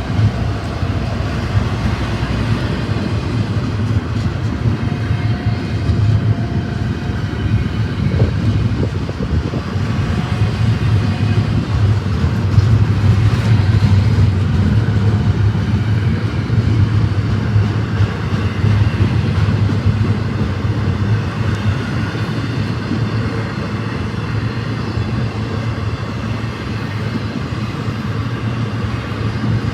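Freight train rolling by with a steady low rumble, with a faint higher tone coming and going now and then.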